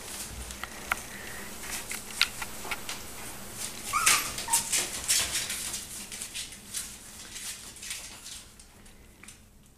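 Five-week-old West Highland white terrier puppies giving short whimpers, loudest about four seconds in, among scattered light clicks and scratches as they move about.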